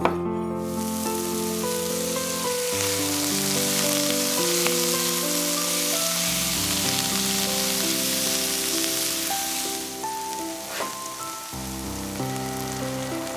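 Halved cherry tomatoes and chopped leek sizzling in oil in a cast-iron skillet, a steady hiss that eases about ten seconds in, under background music with sustained notes. A single knife stroke on a wooden chopping board right at the start.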